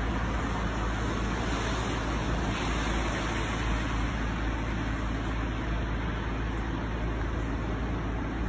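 Steady outdoor background noise with a low rumble, unchanging throughout.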